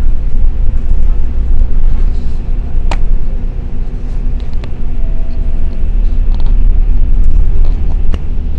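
Bus cabin noise while driving: a loud, steady low engine and road rumble, with a sharp knock or rattle about three seconds in and another near the end.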